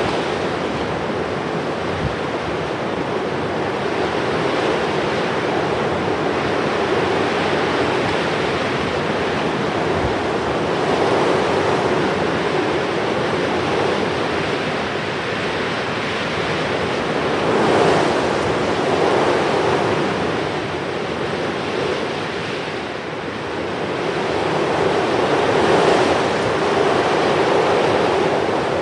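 Sea waves washing in a steady rush, swelling and easing every several seconds.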